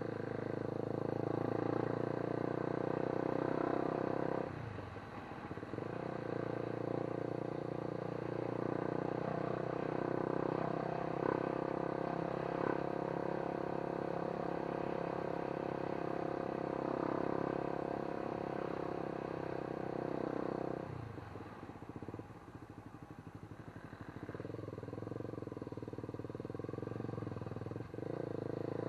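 A vehicle engine running steadily, dropping off briefly twice.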